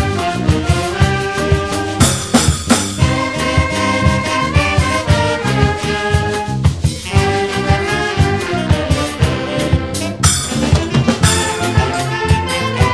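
Brass fanfare band playing a Réunionese standard: trumpets and trombones carrying the tune over a steady, quick drum and percussion beat.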